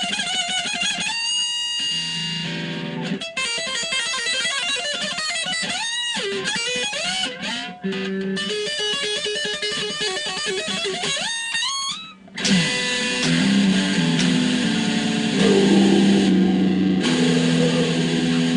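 Electric guitar played unaccompanied: single-note riffs with rising string bends, then louder, fuller low chords from about two-thirds of the way in.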